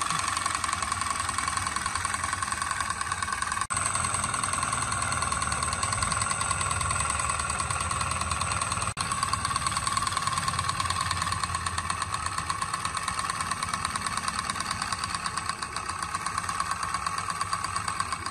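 Misuko three-thread overlock sewing machine running at speed: a steady, fast mechanical rattle from the needle and looper mechanism over a steady motor whine. It breaks off very briefly twice.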